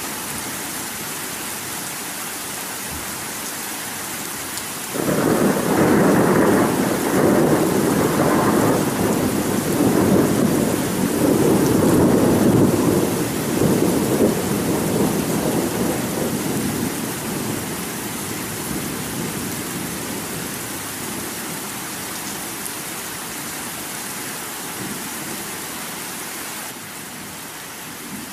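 Steady heavy rain with a long roll of thunder that breaks in suddenly about five seconds in and slowly dies away over the following fifteen seconds.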